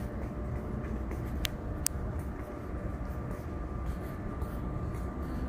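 Steady low rumble of wind buffeting the microphone on an open ship deck, with two short sharp clicks about a second and a half and two seconds in.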